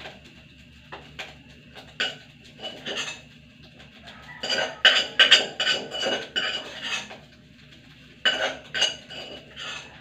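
A metal spoon scraping and clinking against a stainless steel bowl in irregular bursts, the bowl ringing briefly after the sharper knocks. The scraping is busiest in the middle and again near the end.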